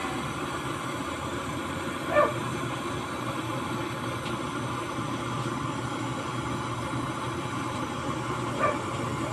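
Steady low rumbling hiss of a burner heating a pot of cooking oil, broken twice, about two seconds in and near the end, by a short high yelp.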